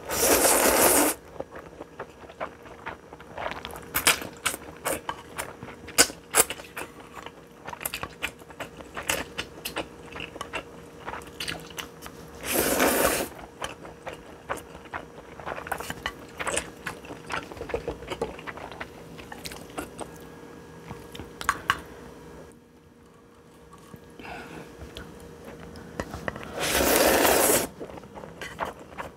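A person eating spicy stir-fried instant noodles: three loud slurps of about a second each, one at the start, one about halfway and one near the end, with chewing and small wet mouth clicks between.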